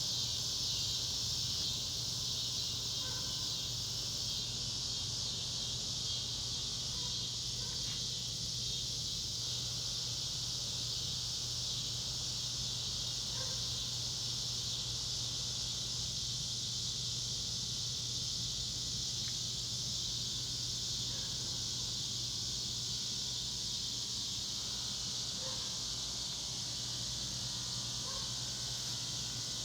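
A chorus of cicadas droning: a loud, continuous high-pitched buzz that holds steady without breaks.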